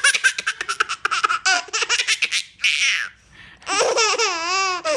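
Baby girl belly-laughing in quick rapid bursts, about six a second, then a short breathy burst midway and a long wavering squeal in the last second.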